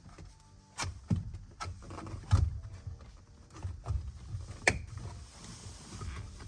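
Clicks and knocks of plastic parts being handled and fitted on a truck's steering wheel, the sharpest about two and a half and nearly five seconds in, over faint background music.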